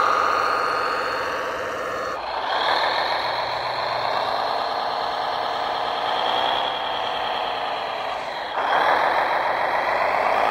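Radio-controlled model tractors running, with an engine-like running sound from their drives: a steady pitch for the first two seconds, then after an abrupt change a New Holland T7 model's sound rising and falling in pitch as its wheels dig and spin in a sand pile, with a sharp jump up in level and pitch near the end.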